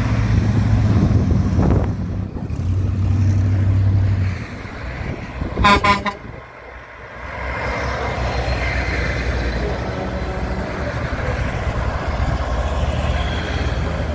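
Vehicles in a convoy driving past at close range. First comes a hot rod's engine, loud and low, for about four seconds. A short horn toot sounds about six seconds in, and then the steady low engine of a big Kenworth semi tractor passes by.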